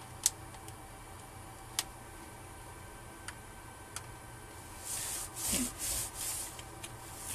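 Hands handling a Dell Inspiron N5110 laptop. Two sharp plastic clicks about a second and a half apart and a few faint ticks come first, then about four seconds in, rubbing swishes as a hand sweeps over the keyboard and palm rest.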